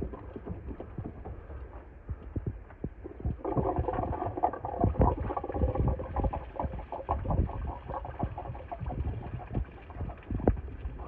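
Irregular metal knocks and scraping of a tool working a truck's water pump loose from the engine casting. The scraping is busiest from about three and a half seconds in until about nine seconds in.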